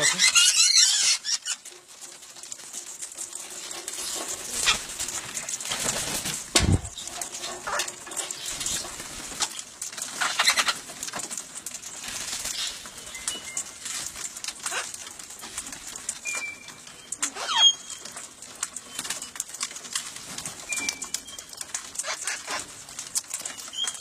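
Parrots feeding at close range: a burst of wing flapping in the first second, then scattered clicks and rustles, a low thump about seven seconds in, and a few short, high chirps toward the end.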